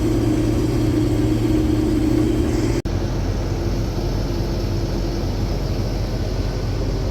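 Combine engine and machinery running steadily, heard from inside the cab, with a very brief break in the sound about three seconds in.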